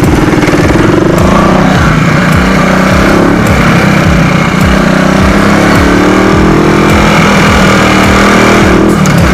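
Motorcycle with an aftermarket bullet exhaust pipe fitted with a silencer, running steadily under way, loud and close.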